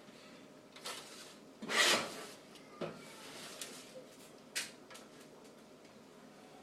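Kitchen handling noises: a few light knocks and clicks, with a short rubbing swish about two seconds in.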